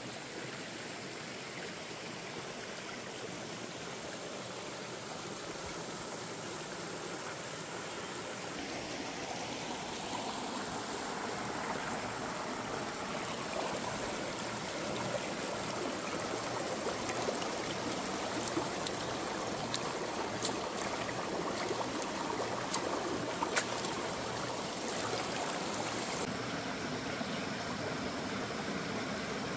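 Shallow rocky stream flowing and splashing over stones, a steady rush of water that grows louder about a third of the way in, with a few light clicks over it in the middle part.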